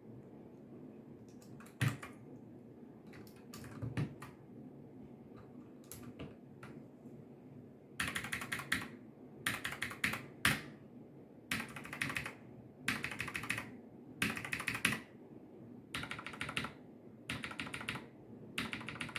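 Logitech mechanical keyboard with stock Cherry MX Brown tactile switches being typed on: a few single keystrokes, then from about eight seconds in, short bursts of rapid typing roughly every second and a half. These are the untreated 'bad switches', not yet lubricated.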